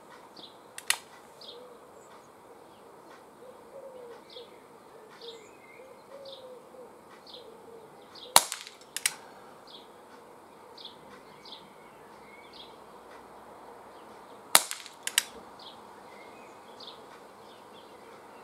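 Three shots from an ASG Schofield 6-inch CO2 air pellet revolver: sharp single cracks about a second in, about eight seconds in and about fourteen and a half seconds in, the middle one loudest. Each is followed about half a second later by a softer click.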